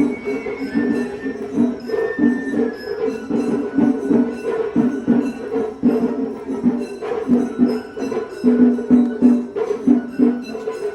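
Japanese festival float music (matsuri bayashi): drums beaten in a fast, dense rhythm, with a small hand gong and short bamboo-flute phrases above.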